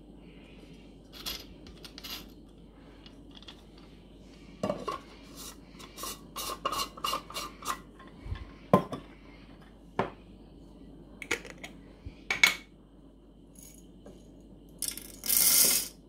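Clicks and clatters of plastic and metal parts as the grinder of a Thomson Scenium TM-BCM-DL911 portable coffee maker is fitted together, then near the end a short rush of coffee beans poured from a jar into its clear plastic hopper.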